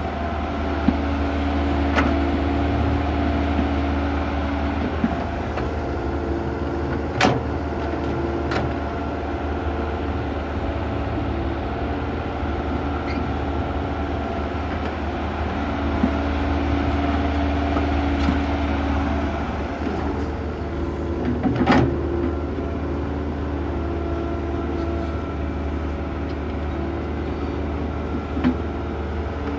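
Kobelco SK120-1 hydraulic excavator's diesel engine running steadily while it works, with a higher tone coming and going over the low drone. A few sharp knocks break in, loudest about seven and twenty-two seconds in.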